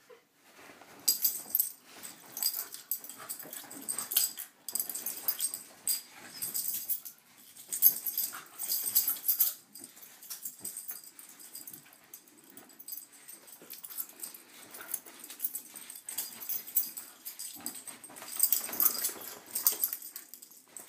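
Two corgis play-fighting on a duvet: dog play-growls and noises mixed with the scuffling and rustling of the bedding, in irregular bursts that start about a second in.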